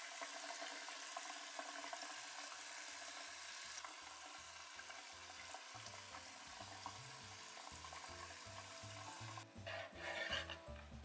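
Tap water running onto deep-fried tofu sheets in a metal mesh strainer, a steady splashing hiss that stops about nine and a half seconds in. It is followed by a knife cutting through the tofu with a few quick knocks on a wooden cutting board.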